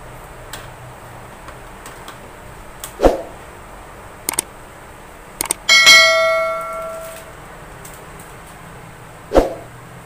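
Subscribe-button overlay sound effect: a few quick mouse clicks, then a notification-bell ding about six seconds in that rings out and fades over about a second and a half. Two dull knocks, one about three seconds in and one near the end.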